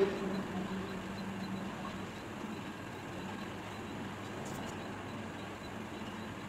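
Steady background noise with a faint low hum that fades about two seconds in.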